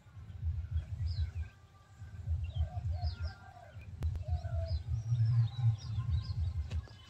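Several birds chirping and calling in short, quick notes throughout, over a low, uneven rumble on the microphone, typical of wind buffeting it.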